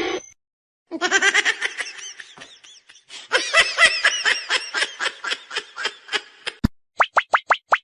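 Someone laughing in rapid repeated bursts, high-pitched, with a short pause after the first bursts. Near the end comes a fast, even run of short, identical rising chirps, about six a second.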